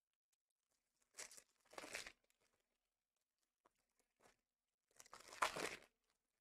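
Trading card pack wrappers torn open by hand: two short ripping, crinkling tears, one about a second in and a louder one about five seconds in.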